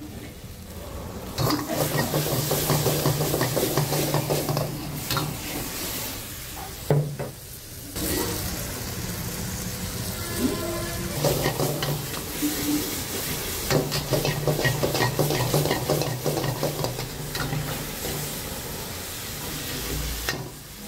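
A metal ladle scrapes and stirs around a black iron wok while sauce-coated battered prawns, onions and capsicum sizzle in it. There are two long bouts of busy scraping with a short lull between them.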